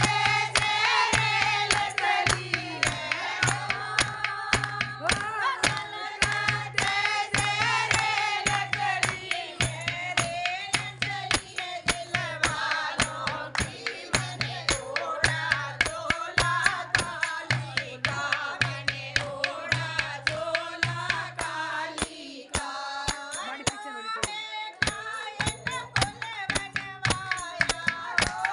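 Two women singing a Hindi devotional song (bhajan) together, keeping time with steady rhythmic hand clapping.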